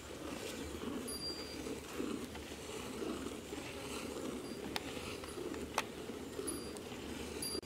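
Milk squirting by hand from a cow's teats into a steel pail, a steady run of squirts into the milk already in it. Two short sharp clicks sound about five and six seconds in.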